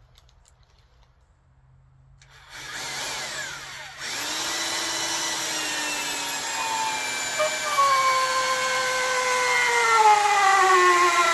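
Corded drill driving a long timber screw into a wooden beam. The motor starts about two seconds in and runs steadily, its pitch slowly falling as it labours under the growing load of the screw.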